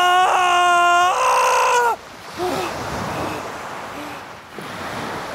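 A person's long, loud wailing cry, held on one pitch and then stepping higher about a second in, breaking off about two seconds in. After it, surf washes over a stony shore, with a couple of brief faint cries.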